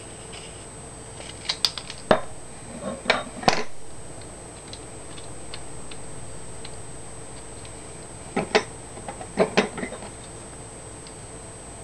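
Scissors snipping paper and clacking on a desk: a quick run of sharp clicks and knocks about two to three and a half seconds in, and a second cluster about eight and a half to ten seconds in.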